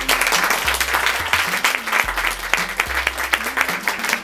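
A roomful of dinner guests applauding, a dense, steady clapping, with music playing softly underneath.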